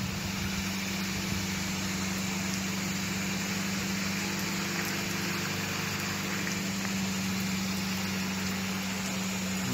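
Steady low hum of an idling engine over the even hiss of falling rain.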